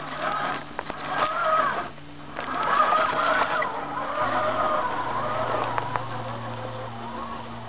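Electric motor and gearbox of a 1:10 scale RC crawler truck whining, the pitch rising and falling with the throttle as it crawls over roots. It pauses briefly about two seconds in, is loudest just after, and fades toward the end as the truck drives away.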